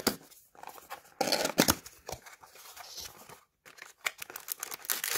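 Cardboard box being opened by hand: the lid scraping and tearing free, with a louder rasp about a second in, then plastic wrapping crinkling near the end.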